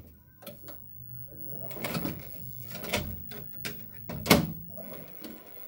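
Scattered mechanical clicks and knocks from a VCR with a stuck VHS tape that will not load, the loudest a little after four seconds in, over a faint low hum.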